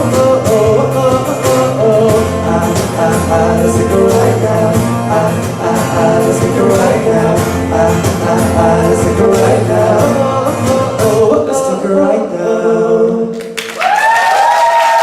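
A live acoustic band plays the outro of a pop song: sung vocal harmonies over bass, acoustic guitar, keyboard and a steady cajon beat. The music stops about thirteen and a half seconds in, and a single held voice rising in pitch follows.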